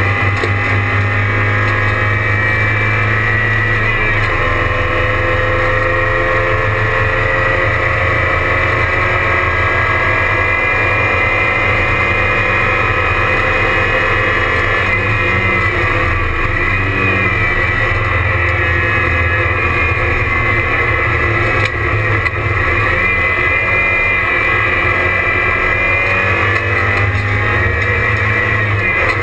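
Porsche 944 race car's four-cylinder engine running hard at racing speed, heard inside its stripped cabin, its note repeatedly rising and falling with acceleration, shifts and braking.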